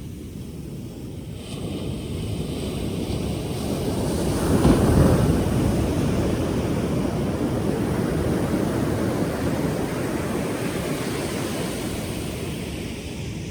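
Pacific Ocean surf: a wave builds, breaks loudly about five seconds in, and then washes out slowly.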